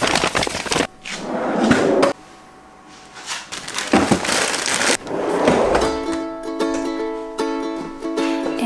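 Several stretches of rustling, clattering handling noise, then ukulele music starts about six seconds in.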